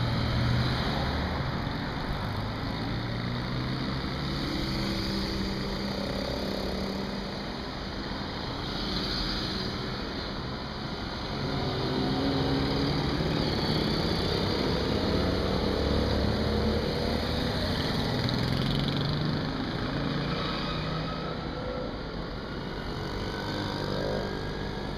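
Small-engined vintage mopeds, autocycles and light motorcycles riding past one after another, each engine's note rising and falling as it goes by. A van drives past at the start.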